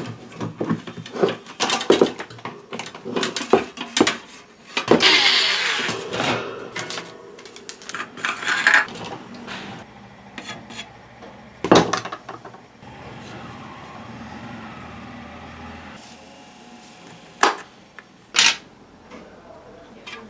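Clicks, knocks and clatter of plastic and metal fan parts being handled and worked on during a repair, with a steady low hum for about three seconds past the middle and two sharp knocks near the end.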